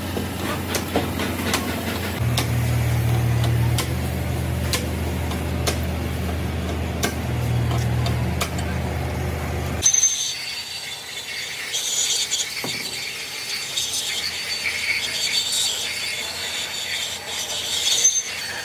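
Metalworking machinery on a diesel cylinder head: a machine's motor hums steadily with scattered light ticks. About ten seconds in, the hum stops abruptly and a high-pitched squealing, scraping sound of tooling working metal takes over.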